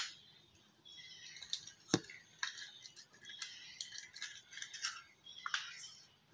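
An egg being cracked and opened over a stainless steel bowl: one sharp knock about two seconds in, then faint clicks and taps of the shell being pulled apart.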